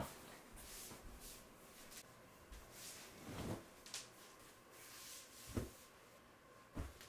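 Futon mattresses and bedding being handled: fabric rustling with a few soft thumps as the bedding is set down.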